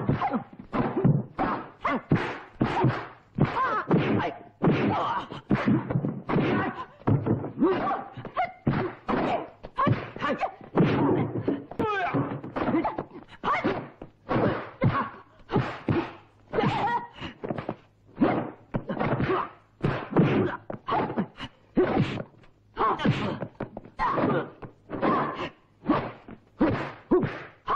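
Kung fu film fight sound effects: a rapid, unbroken string of dubbed punch and kick impacts, about two a second, mixed with the fighters' shouts and grunts.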